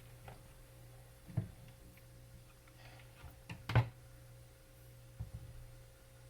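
A few faint, sharp knocks, the loudest about four seconds in, over a low steady hum.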